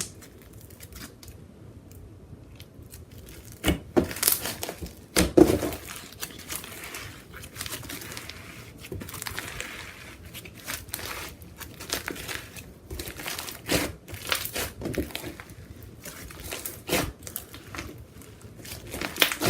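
Slime being squished and stretched by hand, giving irregular sticky pops and crinkly crackles, with a few sharper pops standing out.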